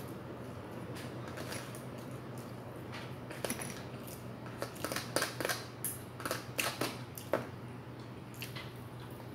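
Eating sounds: a metal spoon and fork scraping and tapping in a plastic food container, with chewing. Clicks and scrapes come in a cluster through the middle, over a steady low hum.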